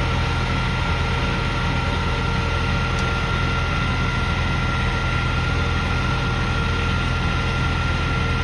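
An engine idling steadily, with a low constant drone and a thin steady whine above it.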